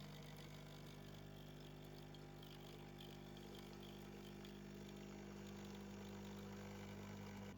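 Quiet, steady hum of a small motor or electric appliance, holding several low tones without change.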